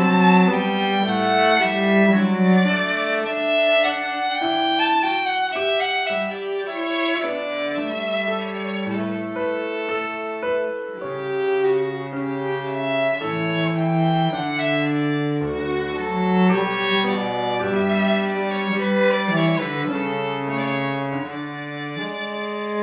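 Instrumental music on bowed strings: a violin melody over a lower cello line, in slow held notes.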